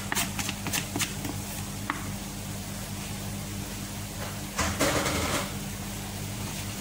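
A wooden spatula taps and scrapes chopped coriander off a plastic bowl into a steel cooking pot, a few sharp taps in the first second. Underneath runs a steady low kitchen hum, and a brief rustling clatter comes about five seconds in.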